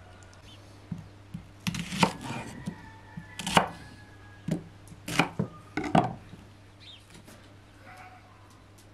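A kitchen knife cutting through an onion and knocking on a thick wooden chopping board, several sharp chops in the first six seconds.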